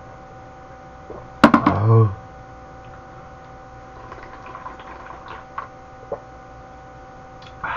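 A sharp click about a second and a half in, then a man's short voiced exhale right after drinking a shot of liquor. After that come soft sipping and slurping sounds as he drinks broth from a metal bowl, with a louder slurp near the end.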